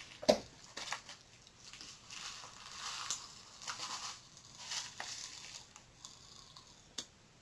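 Pop Rocks being eaten: the candy packet crinkles as it is tipped into the mouth, with a sharp tap about a third of a second in, then a few seconds of soft crackling that fades out.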